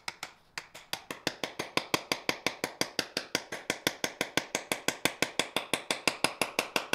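Claw hammer rapidly driving 16-penny sinker nails through a board into a quarter-inch hole drilled in concrete. It is a steady run of quick, sharp blows, about six or seven a second, starting about half a second in.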